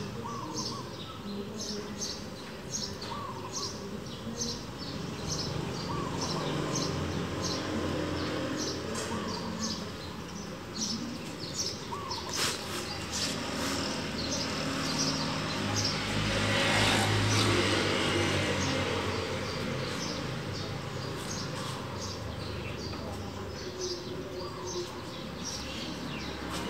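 Outdoor ambience of high chirps repeating about twice a second, with a few short lower bird calls. A little past the middle a rushing noise with a low rumble swells and fades.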